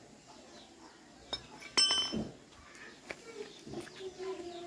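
A sharp metallic clink with a brief bright ring about two seconds in, as of metal striking metal, with a fainter click just before it.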